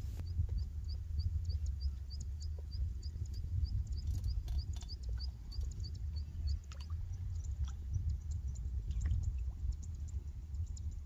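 Wind rumbling on the microphone, with a high, even chirp repeated about three times a second through the first half and again near the end.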